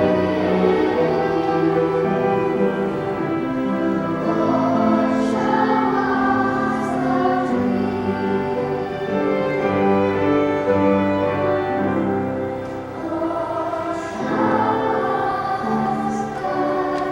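Children's choir singing a song, the voices holding long notes.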